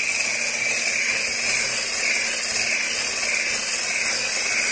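Electric hand-held stick blender with a whisk attachment running steadily, whisking eggs and sugar in a glass bowl: an even whirring hiss.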